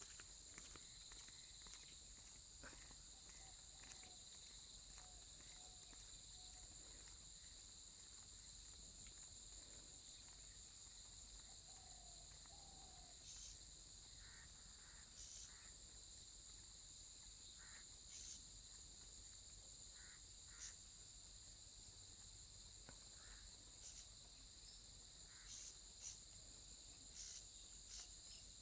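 Faint, steady high-pitched chorus of insects trilling in roadside grass, with a few short chirps scattered through.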